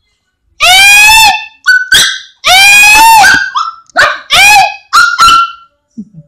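A small dog barking: a run of about eight high-pitched yaps, the first two and the fourth drawn out into long yelping barks, the rest short and sharp.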